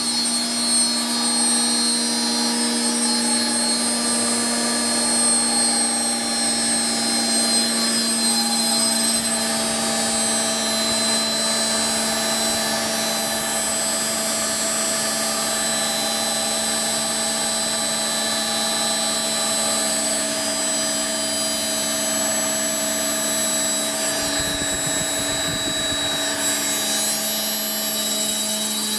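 Old belt-driven Hodson and Gault 110 V DC generator running steadily while powering a 220 V universal motor that spins along with it. Together they give a steady machine hum with several higher tones.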